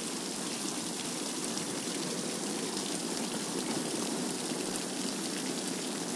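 Water gushing steadily out of a large fish-transport tank and splashing onto the trailer's rusty steel bed as the tank is emptied.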